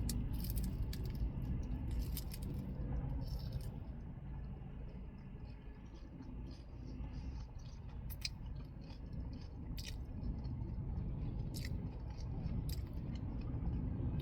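Close-up chewing and crunching of a raw lettuce-boat taco: crisp crackles and clicks, dense in the first few seconds and then a few single ones, over a steady low rumble.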